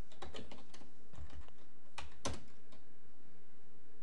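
Computer keyboard typing: scattered keystrokes as a web address is entered, with two sharper key clicks about two seconds in.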